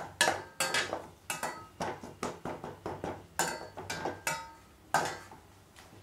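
A metal spoon scraping and knocking against a stainless steel pan while stirring a thick tomato-onion masala, a stroke every half second or so with a light metallic ring. The stirring stops about five seconds in.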